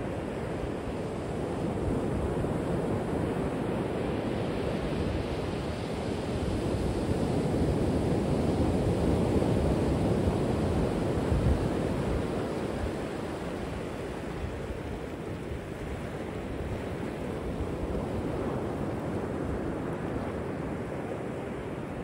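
Ocean surf: waves breaking offshore in a steady rush that swells to its loudest about halfway through, then eases off.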